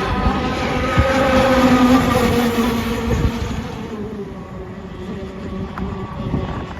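Petrol engine of an MHZ Mystic 185 RC boat running at speed, swelling about a second in and fading away after about four seconds as the boat passes.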